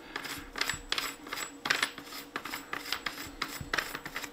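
Loose muzzle brake being twisted off the muzzle of an Umarex HDX 68 by hand: a run of irregular light clicks and rubbing from the threads and hand-held parts.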